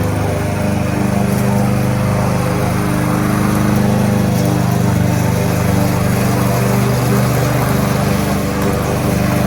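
Kohler XT-675 single-cylinder engine on a Yardworks push lawnmower running steadily at a constant speed.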